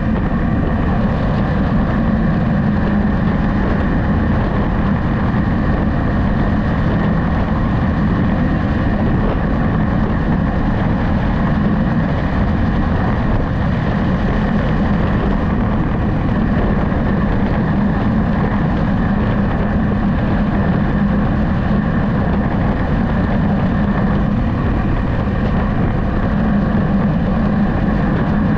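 Steady engine hum with road and wind noise from a moving vehicle, even in level and weighted to the low end, with no sudden sounds.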